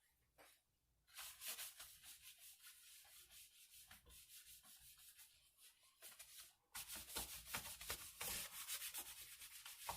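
A damp towel rubbing over a rubber Gold Hog sluice mat in repeated wiping strokes, faint at first and louder about seven seconds in; the mat is being wiped clean so the tape will stick.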